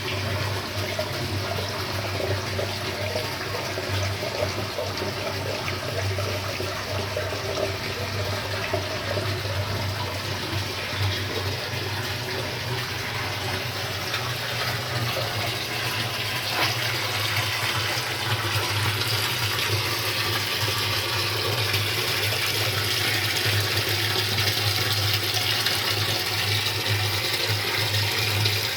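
Storm rainwater rushing and splashing as it flows into a cistern, with a steady low hum underneath; the rush grows a little louder in the last third.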